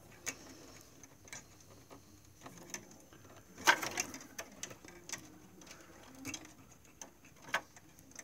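Scattered clicks and rustles of hands handling the plastic parts and ribbon cables of an inkjet printer, with one sharper click a little over halfway and a few smaller ones after it.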